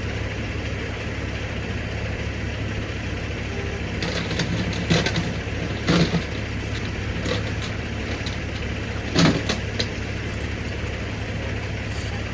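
Semi-truck's diesel engine idling with a steady low rumble, with several sharp metallic clanks of tire chains being handled, starting about four seconds in.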